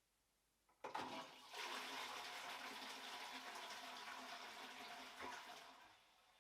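Toilet flushing: a sharp click of the handle just under a second in, then a rush of water for about five seconds that dies away near the end.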